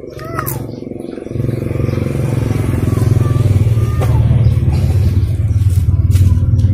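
A motorcycle engine running, growing louder about a second and a half in and staying loud.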